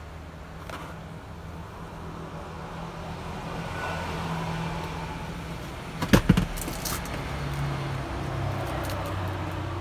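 Low steady hum of a vehicle engine running, heard from inside the car's cabin, with a quick cluster of sharp clicks about six seconds in.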